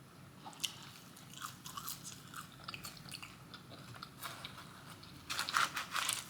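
Close-miked eating of crispy fried food: scattered crunchy bites and chewing, with a louder burst of crunching about five seconds in.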